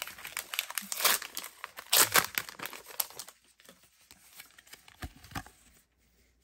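Crinkling and tearing of a Pokémon booster pack's foil wrapper being opened by hand, in dense crackly bursts for about three seconds, then dropping to faint rustling as the cards are slid out.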